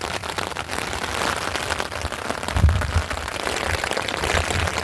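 Steady rain falling, with many close drops ticking on a surface. There is a low dull bump about two and a half seconds in.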